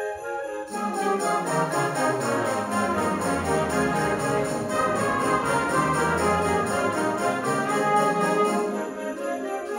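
School concert band playing a full passage: brass and low winds come in about a second in under the clarinets, with a steady percussion beat on top, thinning out near the end.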